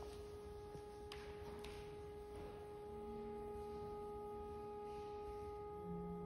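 Soft organ notes held perfectly steady: one sustained note, joined by a lower note about three seconds in and another lower note near the end, building a quiet opening chord.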